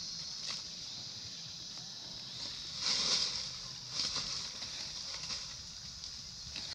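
Steady high-pitched drone of insects, with a few short rustling noises from a long-tailed macaque eating fruit; the loudest comes about three seconds in, and another about a second later.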